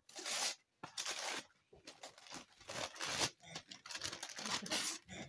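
Wrapping paper being torn off a gift in a series of quick rips, with crinkling in between.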